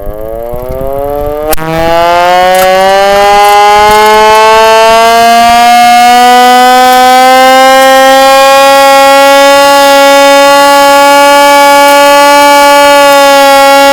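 Mechanical air raid siren winding up. Its wail rises steeply in pitch over the first couple of seconds, keeps climbing slowly for a few more, then holds a steady, very loud tone. The owner thinks the siren dates from World War II.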